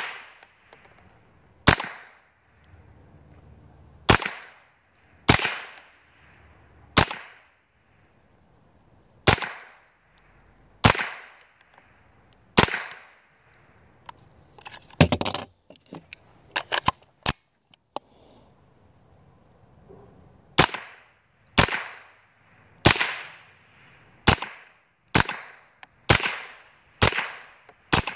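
Smith & Wesson M&P 15-22 semi-automatic rifle firing .22 Long Rifle in slow, steady single shots, roughly one every second or so. Each shot is a sharp crack with a short echoing tail. Midway there is a brief lull with a few fainter, quicker cracks.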